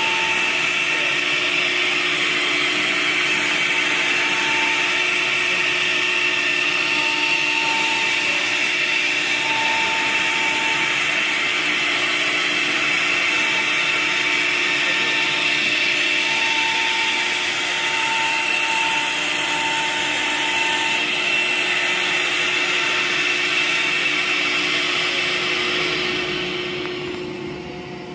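CNC router spindle cutting a wood panel: a loud, steady high whine over the cutting noise, which drops away about two seconds before the end.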